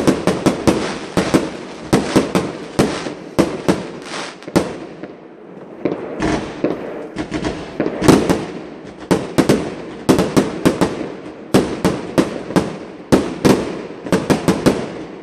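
Aerial fireworks display: sharp bangs of bursting shells in quick succession, several a second, easing briefly about five seconds in before picking up again.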